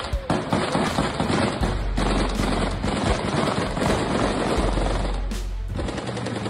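Automatic gunfire in rapid, irregular bursts of shots, over a background music track.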